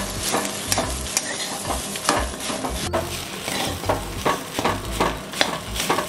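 Steel spatula scraping and stirring a grated radish and potato paratha filling around a steel kadhai, about two scrapes a second, over a light frying sizzle.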